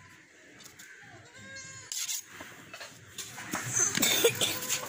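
A goat bleats once, a short wavering call about a second and a half in. Near the end come louder sharp knocks and clatter as meat is butchered.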